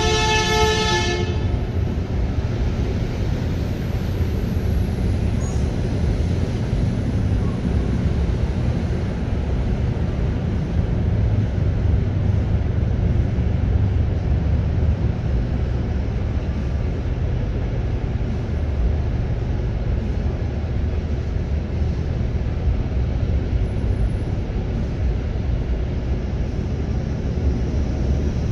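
A vehicle horn sounds once at the start, a steady two-note chord lasting about a second and a half. After it comes a steady, fairly loud low rumble of outdoor background noise with no clear events.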